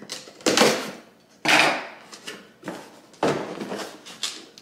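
A scissors blade slicing through packing tape on a cardboard box, and the box being handled and pulled open: four short rasping strokes about a second apart.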